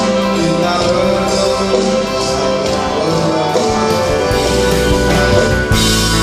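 Live band music from an ensemble of electric guitars, saxophone, violins and drum kit. The sound grows fuller near the end.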